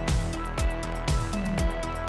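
Background music with a steady drum beat, about two beats a second, over held notes.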